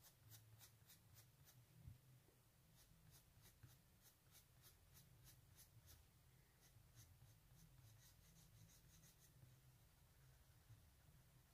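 Faint scratching of a white coloured pencil on drawing paper, laid down in quick short strokes, about four a second, in three runs. The strokes stop about nine seconds in.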